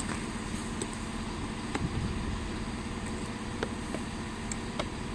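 Steady hum of a ScotRail electric multiple unit pulling out of the platform, with a few faint clicks.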